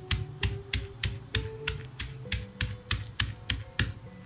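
Wooden pestle pounding in a heavy stone mortar, steady knocks about three a second, crushing wet green chillies, mint, coriander and tamarind pulp into a coarse paste.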